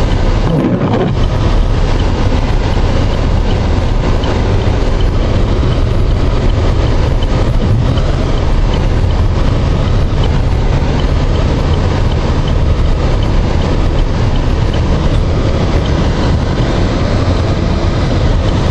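Steady low rumble of a vehicle driving, heard from inside the cab: engine and road noise.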